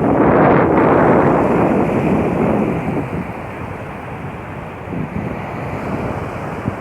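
Sea waves breaking on the shore, one surge loudest in the first second or two and then easing off as the water draws back, with wind buffeting the microphone.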